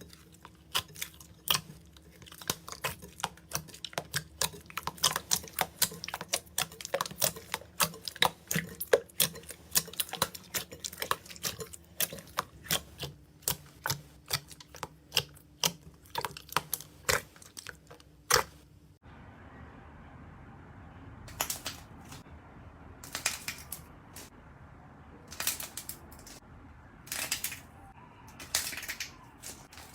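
Slime being pressed and worked by hand, giving rapid sharp crackling clicks like crunchy slime. About two-thirds of the way in the sound changes abruptly to a softer hiss with fewer, longer crackles and squishes.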